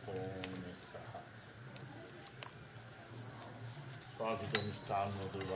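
Crickets make a steady high trill, with a separate chirp repeating about twice a second. A man's voice sounds briefly at the start and again from about four seconds in, and there is one sharp click about four and a half seconds in.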